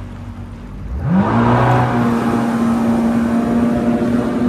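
Kawasaki STX-15F jet ski engine being throttled up about a second in: the pitch rises quickly, then holds steady at speed with the rush of water.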